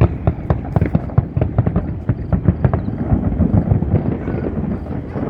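Fireworks display, many shells bursting in quick irregular succession with sharp cracks over a continuous low rumble.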